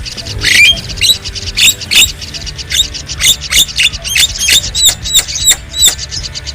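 Javan myna (jalak kebo) singing: a fast, continuous stream of sharp clicks and chattering notes mixed with short hooked whistles.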